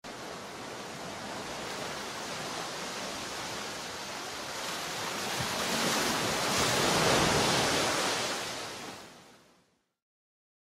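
Sea surf: a steady wash of waves that builds to its loudest about seven seconds in, then fades away to silence.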